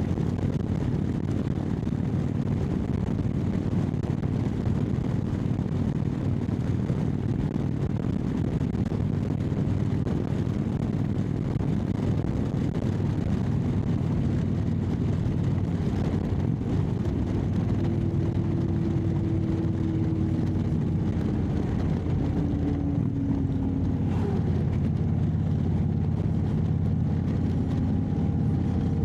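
Motorcycle V-twin engine and aftermarket Freedom Performance exhaust running steadily at a cruise, heard from the bike while riding, with a haze of wind and road noise. The exhaust leak is fixed with a new gasket and the catalytic converter is gone.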